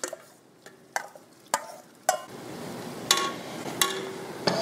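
Browned ground venison and chorizo tipped from a glass bowl into a hot stainless steel pot, with a series of sharp knocks of bowl and utensil against the pot. From about two seconds in the meat sizzles, louder as it is stirred.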